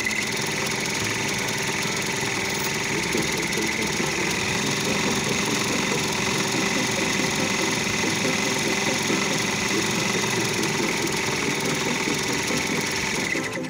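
Brother PR1000e ten-needle embroidery machine running steadily at speed, a rapid, even run of needle strokes with a steady high whine.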